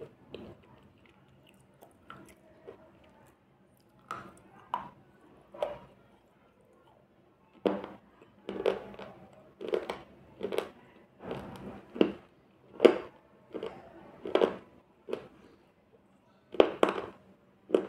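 Close-miked crunching and chewing of slate pencil chips: a few soft crunches at first, then from about eight seconds in a run of sharp bites and crunches, one or two a second.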